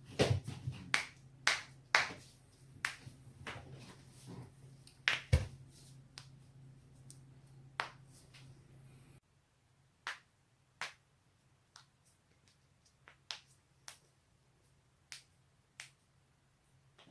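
Spinal joints cracking: a run of sharp, separate pops, some close together in pairs, with a steady low hum under the first half that drops away about nine seconds in.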